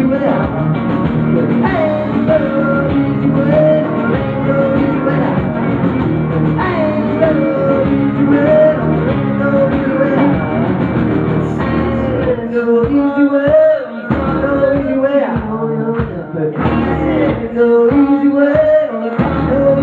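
Rock band playing live, with acoustic guitar and singing, heard through a pocket camcorder's microphone. About twelve seconds in, the band switches to short stop-start hits with brief gaps between them.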